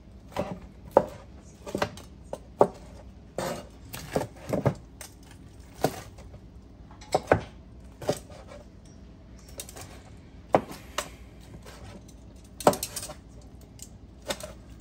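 Kitchen knife cutting boiled ham hocks into bite-sized pieces on a cutting board: short, sharp knocks of the blade hitting the board, coming irregularly, sometimes two in quick succession and sometimes after a pause of a second or two.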